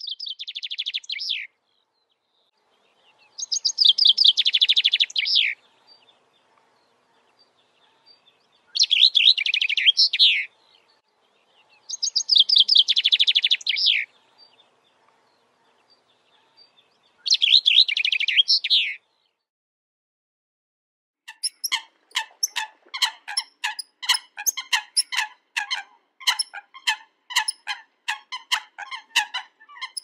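Common chaffinch singing: five phrases a few seconds apart, each a quick falling trill that ends in a short flourish. From about two-thirds of the way in, a different bird gives a fast run of short, sharp calls.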